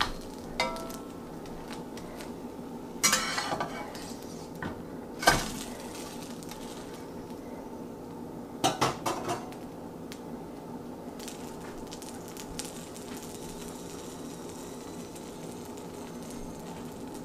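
A slotted metal spatula scrapes and clinks against a nonstick frying pan several times in the first ten seconds as the ramen-noodle grilled cheese is pressed and shifted. Underneath runs the steady low sizzle of the noodles and cheese frying.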